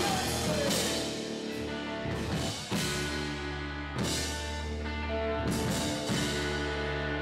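Live rock band playing with electric guitar, bass guitar and drum kit: held low notes punctuated by several loud drum and cymbal accents, the sharpest a little under three seconds in and about four seconds in.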